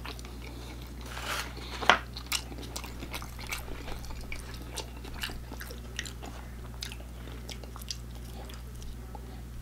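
Close-miked handling of fast-food packaging: a paper nugget box crinkling and a plastic dipping-sauce cup being peeled open and handled, in sharp little clicks and crackles. They are loudest about two seconds in, with a steady low hum underneath.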